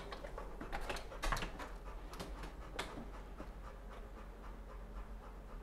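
A dog panting quietly, with a few light clicks of its leash and harness hardware.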